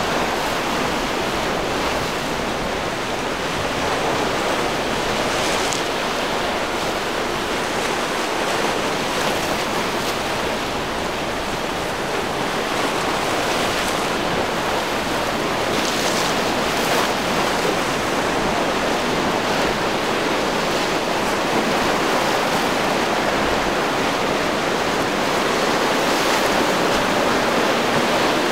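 Steady rush of wind and breaking surf, with a few brief louder surges of water.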